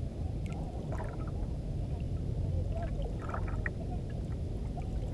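Water lapping and gurgling against a small boat's hull over a steady low rumble, with a few faint clicks.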